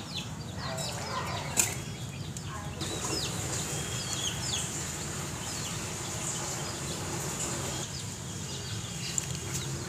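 A few short bird chirps over a steady outdoor hiss, with one sharp click about one and a half seconds in.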